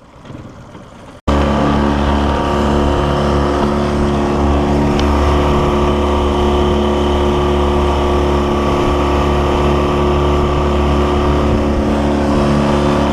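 A motorboat's engine running steadily at constant speed, loud and unchanging; it starts abruptly about a second in.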